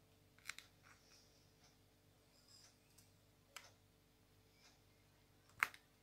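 A few faint, sparse plastic clicks and taps, the loudest about five and a half seconds in, as a diamond-painting pen picks square resin drills from a plastic tray and presses them onto the sticky canvas.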